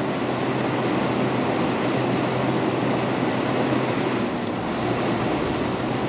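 General Electric rooftop RV air conditioner running: a steady rush of fan noise with a low hum as its compressor is switched on, here without a soft starter. A deeper low rumble comes in about four and a half seconds in.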